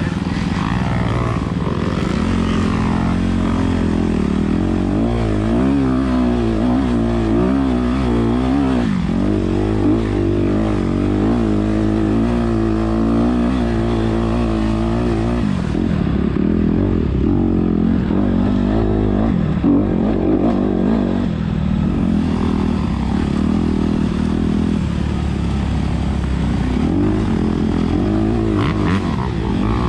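Honda CRF250RX dirt bike's 250 cc four-stroke single-cylinder engine being ridden hard, its pitch rising and falling over and over with the throttle through the gears.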